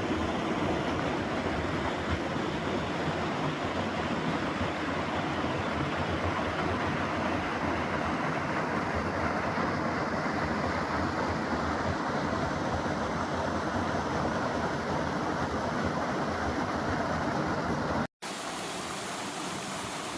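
Water rushing steadily over a partly frozen waterfall. The sound cuts out for a moment near the end and comes back a little quieter.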